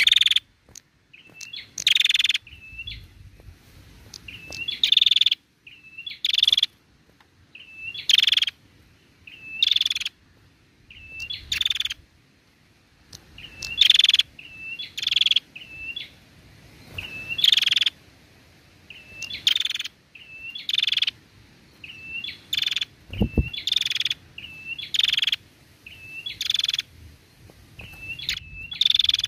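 A female prenjak calling over and over: each phrase is a couple of short curled chips followed by a loud harsh, rasping burst, repeated about every one and a half to two seconds. A single low thump about twenty-three seconds in.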